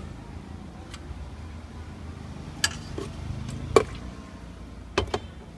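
Utensils and steel pot lids knocking against stainless-steel pots and containers during food prep: a handful of separate sharp clicks and clinks, the loudest about two-thirds of the way through and a quick pair near the end.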